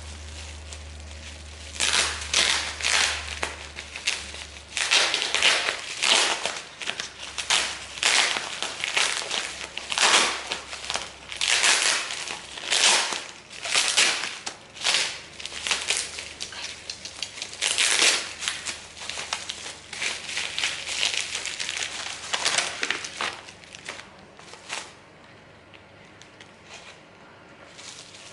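Packaging crinkling and rustling as it is unwrapped and handled, in irregular bursts that die down near the end. A low hum runs under it for the first few seconds.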